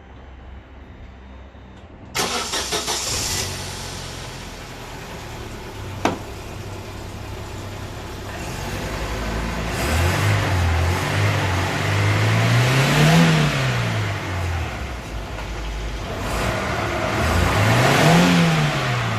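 Daewoo Lanos car engine cranking and starting about two seconds in, then running in gear and revved up and back down twice, spinning a jacked-up front wheel through the gearbox to bring out the hum of a worn front left wheel bearing. A single sharp click comes about six seconds in.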